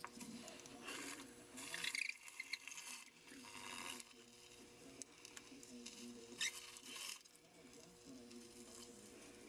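Dry ice worked against the metal of a hydraulic steering valve: irregular faint scraping and handling noises with a few short, high squeaks, about two seconds in and again past six seconds.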